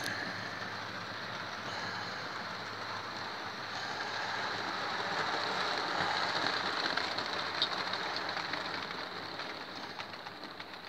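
Model railway train running on track: the steady rattle of a long rake of small wagons rolling over the rails. It grows louder to a peak about six to seven seconds in as it passes close, then fades.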